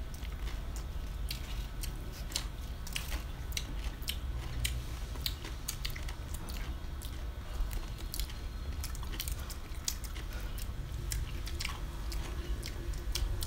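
Two people chewing and biting food, with many irregular wet mouth clicks and smacks.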